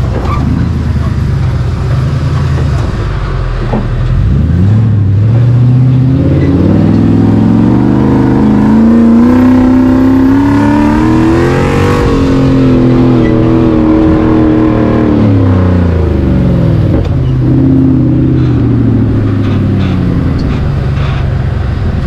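Toyota 1UZ-FE V8 engine of an off-road buggy, heard from on board while driving. The revs climb steadily for several seconds, peak about halfway through, fall away, then pick up again near the end.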